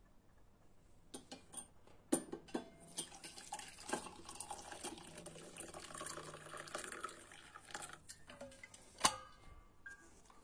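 Coffee poured from a stainless-steel vacuum jug into a ceramic mug, a splashing pour lasting several seconds. Several sharp clicks come before it, and a loud knock near the end.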